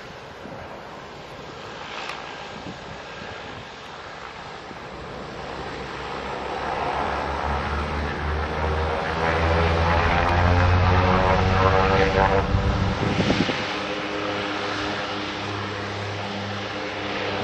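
De Havilland Canada DHC-6-300 Twin Otter's two Pratt & Whitney PT6A turboprops at takeoff power during the takeoff roll, a propeller buzz that swells as the aircraft passes. It is loudest a little past the middle, then eases to a lower steady drone as the aircraft moves away down the runway.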